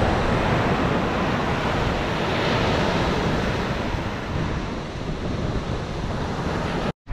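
Ocean surf breaking and washing up the beach in slow swells, with wind buffeting the microphone. The sound drops out abruptly for a moment just before the end.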